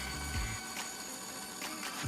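Bandsaw running with a steady high whine while cutting thin plywood, under background music with a steady thudding beat.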